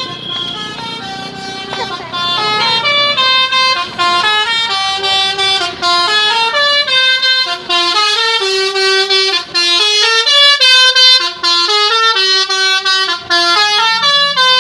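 Basuri telolet bus horn playing a loud melody of short stepped notes, one after another with brief gaps.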